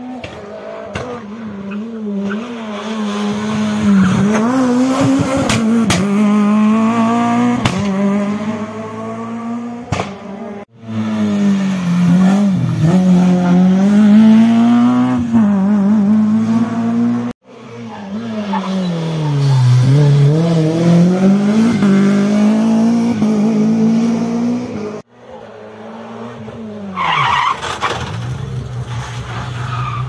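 Rally cars on a tarmac stage, one after another with sudden cuts between them, engines revving hard and dropping in pitch on each gear change or lift-off. A brief tyre squeal comes near the end.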